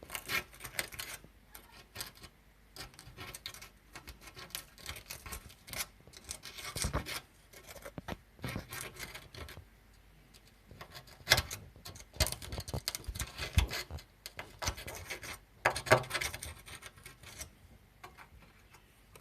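Irregular runs of scratching and rubbing, broken by small sharp clicks and knocks: hand work rubbing or scraping on a hard surface.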